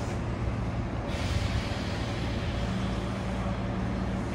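Hankyu 9300 series electric train standing at a platform, its onboard equipment giving a steady low hum. A broad hiss like released air sets in about a second in and fades slowly.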